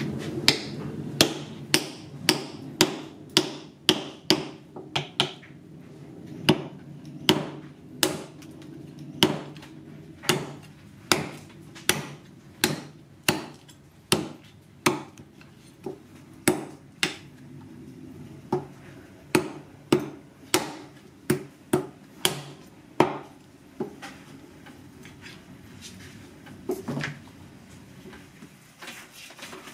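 Heavy cleaver chopping raw wild boar meat and bone on a thick wooden chopping block: a steady run of sharp chops, about one to two a second, thinning out near the end.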